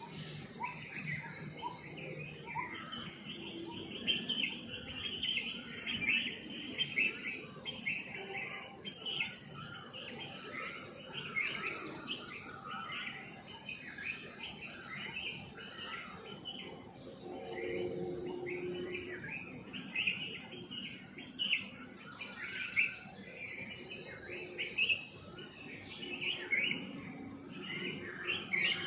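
Birds chirping and twittering in a dense, continuous chorus of short, high, overlapping calls.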